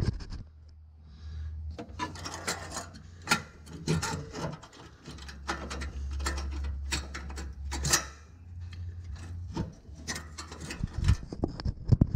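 Metal scraping and clunking as the exhaust pipe is worked back up into place under the truck, with sharp knocks about 3, 8 and 11 seconds in.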